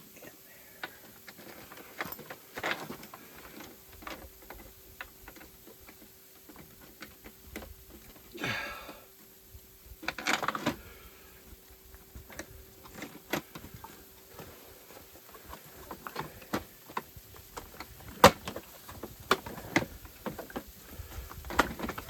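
Irregular clicks, taps and knocks of the Honda EU2200 generator's plastic case panels and bolts being handled and refitted, with two short scraping rustles about eight and ten seconds in.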